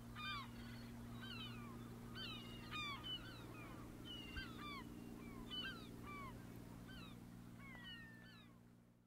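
Gulls calling over and over in short down-slurred cries, over a steady low engine hum from the beach machinery; everything fades out at the very end.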